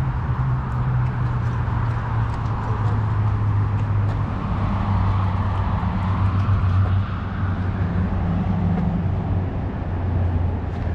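Steady low rumble of motor vehicles, with an even hum and a hiss above it.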